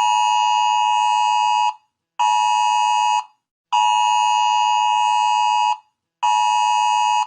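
Electronic emergency alert tone sounding in four loud blasts, long, short, long, short, each a steady, unwavering tone that cuts off cleanly.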